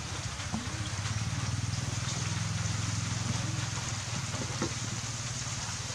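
Steady low motor-like hum with a regular pulse under a constant hiss.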